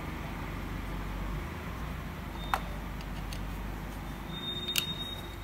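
Small clicks and taps as a compression-tester hose is fitted into an engine's spark-plug well, over a steady background hum. A brief high beep sounds near the end.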